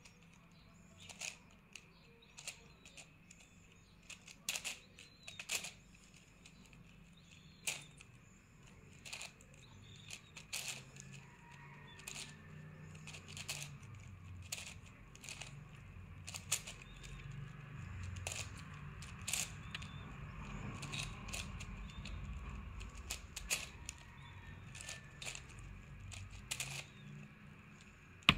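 Layers of a plastic 9×9 cube being turned by hand: irregular sharp clicks, one or two a second. A faint low rumble in the background grows louder from about a third of the way in.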